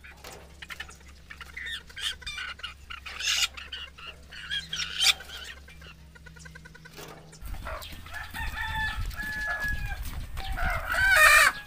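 Native chickens clucking and squawking as they are caught and carried by the legs, with short calls throughout, longer held cries in the second half, and the loudest squawk near the end.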